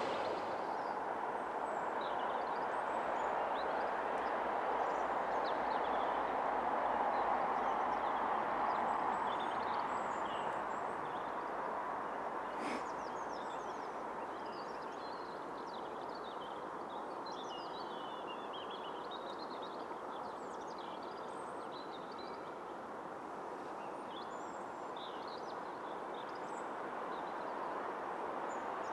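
Small birds chirping and calling over a steady distant hiss that swells a little and then slowly fades, with one sharp click about halfway through.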